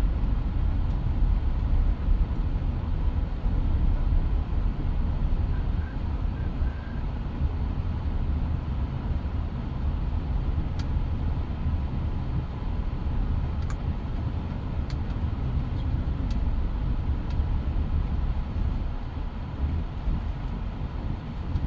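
A Mitsubishi Pajero Sport driving: a steady low rumble of engine and road noise, with a few faint ticks in the second half.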